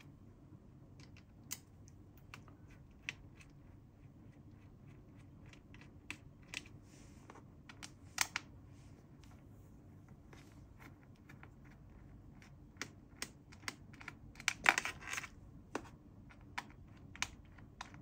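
Scattered small clicks and taps from the captive screws of an HP EliteBook 835 G7's aluminium bottom cover being undone, with a short run of scraping clicks about three-quarters of the way through.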